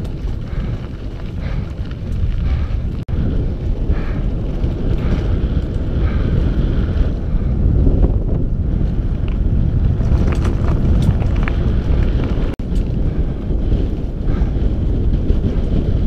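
Wind buffeting the microphone of a camera on a downhill mountain bike riding a rough chalk and gravel track, over a steady low rumble with scattered clicks and rattles from the bike. The sound cuts out for an instant twice, about three seconds in and again about twelve and a half seconds in.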